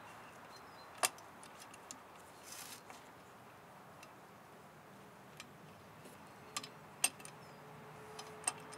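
Sparse sharp clicks and light metallic taps from hand tools and a small bench vise being handled, the two loudest about a second in and about seven seconds in, with a brief soft rustle between them. A faint steady hum comes in near the end.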